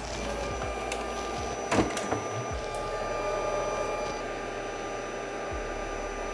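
Glowforge laser cutter's fans whirring steadily, with a couple of light clicks about two seconds in.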